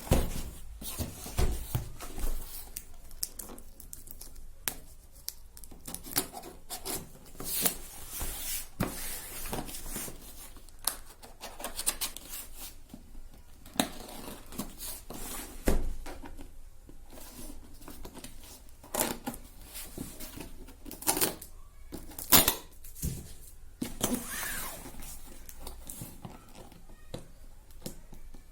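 Laptop box and its packaging being opened by hand: irregular tearing, scraping and crinkling, with scattered sharp clicks and knocks.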